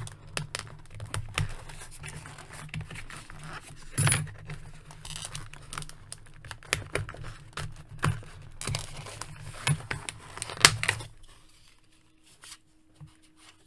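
Scissors snipping the ties of a toy's plastic-and-cardboard packaging, then the plastic ties and tray being worked loose by hand: a run of sharp clicks, snaps and crinkling that stops about eleven seconds in.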